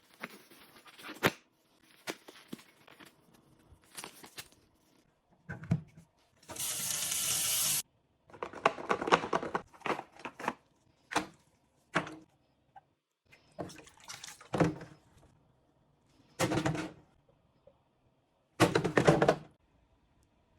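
Cleaning sounds from a coffee machine: a string of short bursts of running water, as from a tap, with sharp knocks between them. One steady gush lasts about a second and a half, starting about six and a half seconds in.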